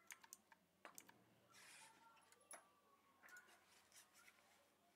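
Near silence: room tone with a few faint scattered clicks.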